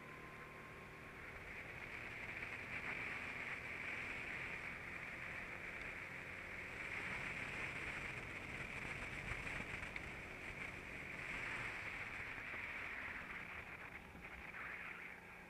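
Go-kart engine and wind rush at racing speed, a muffled even noise with no clear engine note, swelling after a couple of seconds and dropping off near the end.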